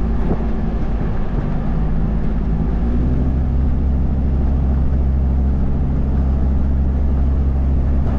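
Engine and road noise of a car being driven, heard from inside the cabin, running steadily; the engine note shifts slightly about three seconds in.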